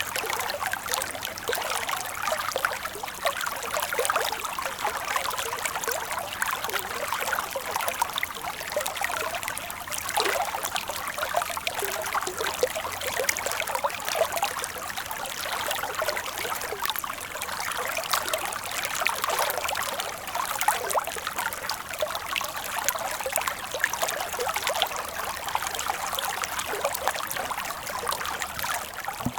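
Shallow stream water running and trickling over stones, a steady bubbling babble without pauses.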